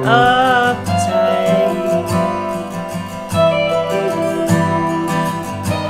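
Acoustic duo playing between sung lines: a steel-string acoustic guitar strummed under single-note lines on a Telecaster-style electric guitar.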